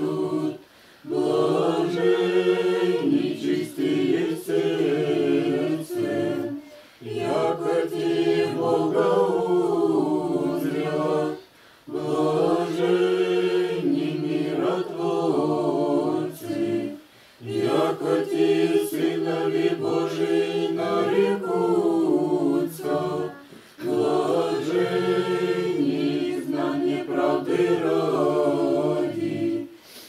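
Unaccompanied choir singing Orthodox liturgical chant in slow, held phrases of about five seconds each, with short breaks for breath between them.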